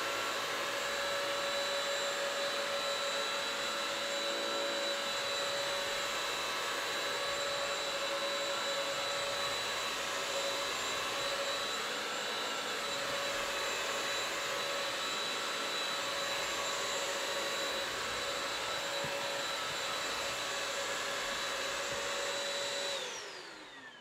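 Bissell CrossWave 1785A wet-dry vacuum mop running on a hardwood floor, a steady motor whine. Near the end it is switched off and the whine falls in pitch as the motor winds down.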